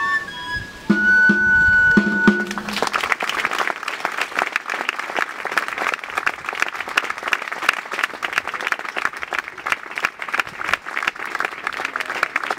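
A txistu, the Basque three-holed flute, plays a few last held notes over a couple of drum beats, ending about two seconds in. A crowd then applauds for the rest of the time.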